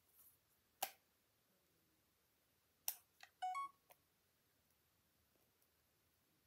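A Sony compact camera gives a short two-note electronic beep about three and a half seconds in. A few faint clicks from handling the camera and its flip-out screen come before and after the beep.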